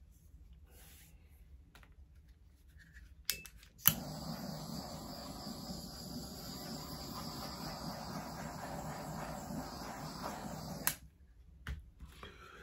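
Handheld butane torch lit with a couple of igniter clicks about four seconds in, then a steady hiss of the flame for about seven seconds as it is passed over the wet acrylic pour paint, cut off suddenly near the end.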